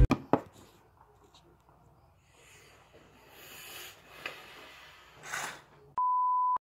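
Two faint clicks, then soft scattered rustling, then a steady 1 kHz test-pattern tone that starts abruptly about six seconds in: the reference beep that goes with TV colour bars.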